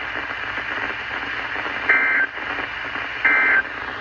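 Two short bursts of NOAA Weather Radio SAME end-of-message data tones, a buzzy two-tone digital squawk about a second apart, over steady radio static. These tones signal the end of an alert message.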